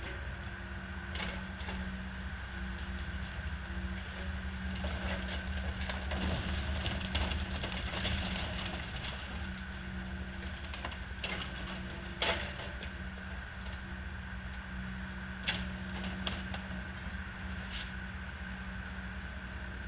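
John Deere mini excavator's diesel engine running steadily under hydraulic load while it tears apart a mobile home, with clattering and crunching of siding and framing in the middle and a few sharp bangs of debris later.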